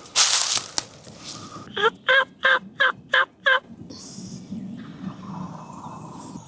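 Wild turkey calling: six loud, evenly spaced notes a little under two seconds in, lasting about two seconds. Before them, at the start, is a loud rustle of brush or clothing.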